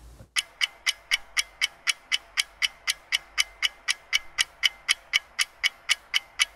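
Ticking-clock sound effect: crisp, evenly spaced ticks at about four a second.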